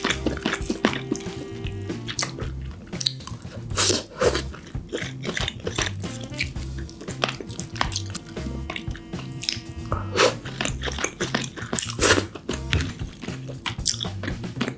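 Steamed king crab shell cracking and being pulled apart by hand, with crunching and chewing, several sharp cracks standing out, over background music with a steady low beat.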